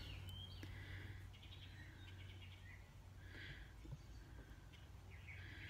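Near silence: a steady low hum, with a few faint, brief higher-pitched scuffs or chirps scattered through it.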